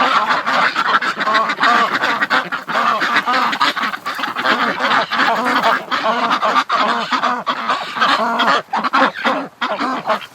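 A flock of domestic ducks and geese quacking and honking without pause, many calls overlapping, thinning a little near the end.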